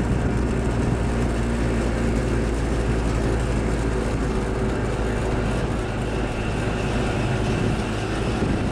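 Piaggio Vespacar P2's single-cylinder two-stroke engine running steadily on the move, heard from inside the cab. The driver suspects an air leak upsetting the carburettor, making the engine super sensitive on the throttle.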